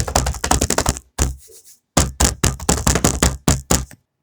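A fast, loud run of knocks, about ten a second. It breaks off about a second in, comes back with a short burst, then runs again from about two seconds in and stops shortly before the end.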